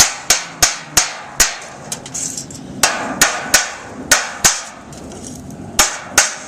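Hammer blows driving fasteners through metal chimney flashing, in quick runs of sharp strikes, about thirteen in all, each ringing briefly.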